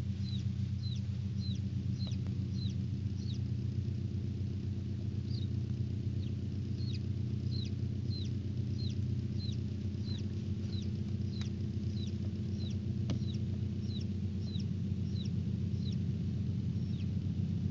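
Chicken chick peeping repeatedly: short high peeps that fall in pitch, about three a second, with a brief pause a few seconds in. Beneath them runs the loud steady low hum of the incubator.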